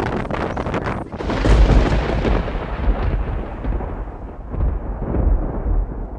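Wind buffeting the microphone: a low rumble under a rushing noise that turns duller toward the end.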